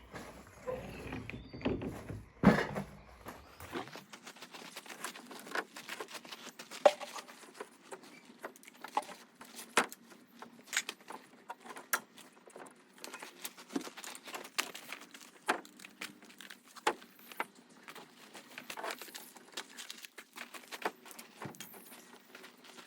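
Scattered light clicks and knocks at an irregular pace, from timber and tools being handled during woodworking.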